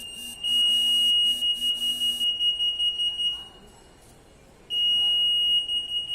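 RF anti-theft (EAS) gate's alarm sounding a single high, shrill tone, the signal that a security tag has been detected. The tone starts about half a second in, turns fluttery partway through, cuts off for about a second and then starts again.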